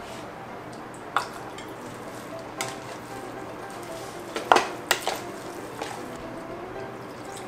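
Plastic rice paddle stirring cooked glutinous rice mixed with coconut milk in the steel inner pot of an electric rice cooker. A few sharp knocks of the paddle against the metal pot come through, the loudest a little past halfway.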